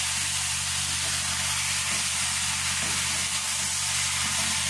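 Beef ribs frying in a pot with a little hot oil: a steady sizzling hiss.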